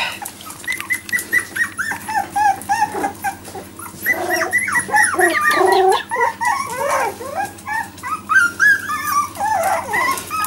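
Four-week-old Jack Russell Terrier puppies whining and yipping: many short, high-pitched squeaky cries, often several overlapping, getting busier from about four seconds in.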